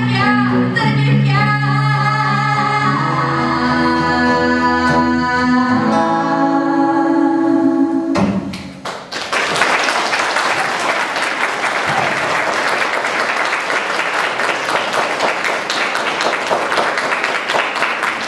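A female vocalist sings the closing phrases of a song over guitar accompaniment, ending on a long held note about eight seconds in. After a brief pause the audience applauds steadily.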